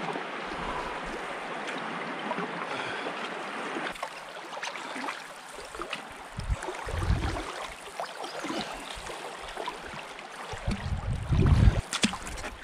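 Fast river current rushing, a steady hiss of moving water, with two short low rumbles about seven and eleven seconds in.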